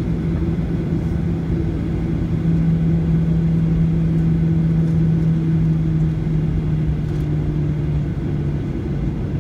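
Boeing 737 jet engines running at low taxi thrust, heard inside the airliner's cabin as a steady drone with a low, even hum. It swells a little a couple of seconds in and eases back near the end.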